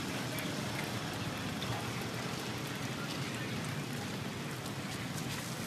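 Oil sizzling steadily in a wide frying pan as chive cakes (num kuy chhay) shallow-fry, with fine crackles throughout.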